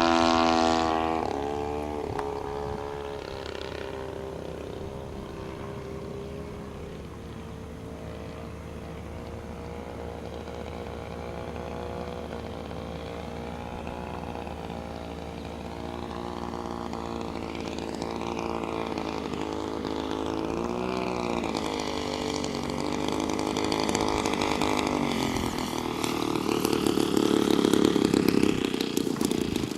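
Two-stroke Husqvarna chainsaw engine driving the propeller of a giant-scale radio-control airplane, running throughout with its pitch swinging up and down; its pitch drops about a second in and it is loudest near the end.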